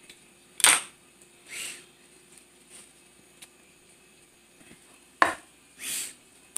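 Two sharp knocks, the first about half a second in and the second about five seconds in, as objects are handled on a glass tabletop; each knock is followed about a second later by a short rustle.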